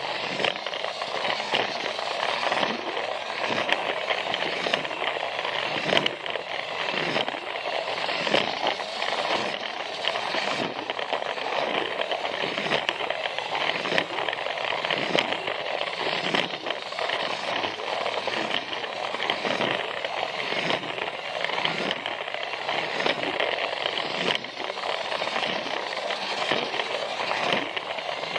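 Plarail battery-powered toy train running on plastic track: its small motor and gears whirr steadily, with a regular clack about once a second as the wheels cross the track joints, and small clicks in between.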